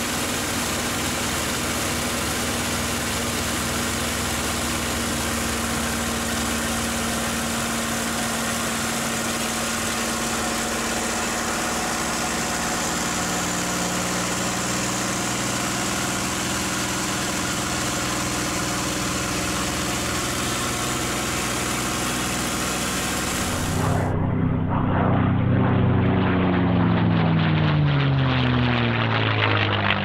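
Packard Merlin V-1650-7 V12 of a P-51D Mustang in aerobatic flight, heard from inside the cockpit as a steady engine drone mixed with wind and airframe noise. About 24 seconds in the sound changes abruptly to the same aircraft heard from the ground. It is louder there, and its pitch falls steeply as it passes overhead.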